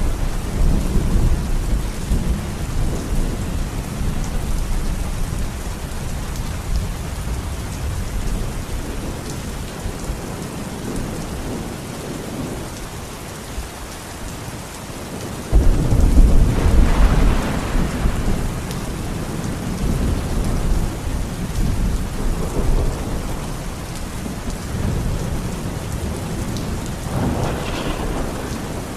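Steady rain with rolling thunder: a low rumble fades over the first few seconds, and a louder rumble breaks in suddenly about halfway through and rolls on for several seconds.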